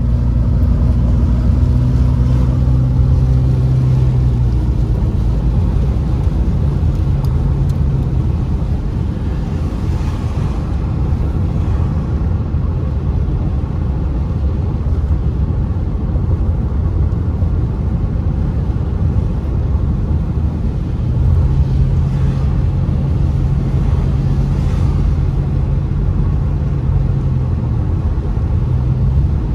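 Car driving on a wet road, heard from inside the cabin: a steady low road and tyre rumble, with the engine's low hum coming up in the first few seconds and again for several seconds near the end.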